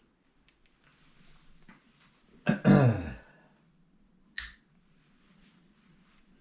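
Two tiny clicks, then a short, loud, low throat sound falling in pitch, like a throat clearing or a burp, and a single sharp snap near the end.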